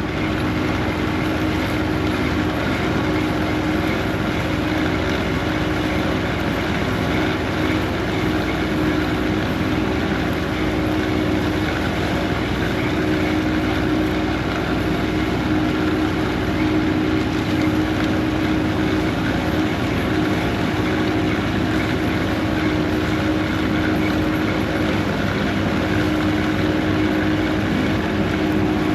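Heavy diesel farm machinery running steadily, with a constant hum and no change in pitch.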